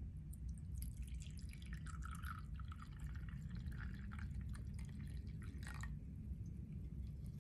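A brewed drink poured from a glass server into a ceramic cup: a trickling splash that starts about a second in and stops about six seconds in.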